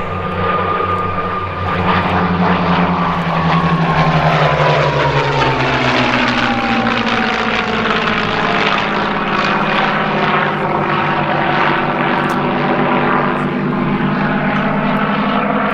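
Hispano HA-1112 Buchon's Rolls-Royce Merlin V12 engine in a flypast. The propeller engine note falls in pitch as it passes, a few seconds in, then settles into a steady drone.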